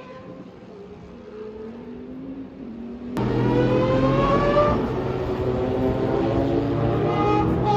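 Mazda four-rotor rotary race engine running with a high, pitched exhaust note. At first it is fainter, its pitch rising and dropping. About three seconds in it turns much louder, the pitch climbs as the engine revs up, then it holds at a steady high note.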